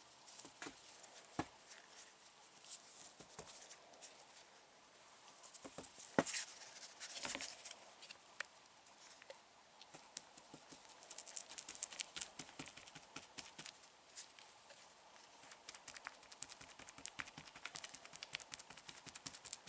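Chip brush dabbing polyester resin into fiberglass mat: faint, quick wet taps and crackles in an uneven patter. A couple of louder knocks come about six and seven seconds in.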